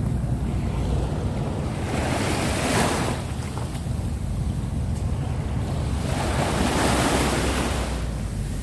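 Sea waves washing onto the shore, surging twice, over a steady low rumble of wind buffeting the microphone.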